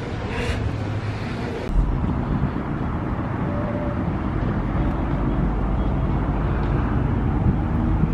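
Street traffic noise: a steady low rumble of cars passing, which steps up a little about two seconds in and slowly grows louder.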